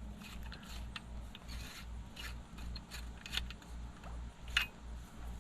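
Solid-brass garden-hose quick-connect fitting being threaded onto a yard hydrant's spigot: metal scraping and clicking in short strokes, the sharpest click about four and a half seconds in.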